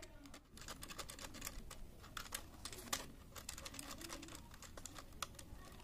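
Thin bare copper wire being looped around the brass terminal screws of plastic switches by hand: faint, irregular small clicks and ticks.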